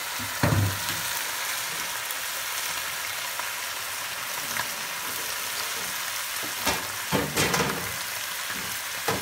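Saltimbocca (meat slices with prosciutto and sage) frying in a pan, sizzling steadily, with a few brief knocks about half a second in and again a couple of times near the end.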